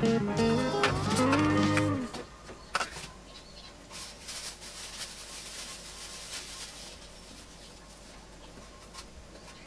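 Background guitar music that ends about two seconds in with a bending, sliding tone, followed by faint hiss with a few light taps.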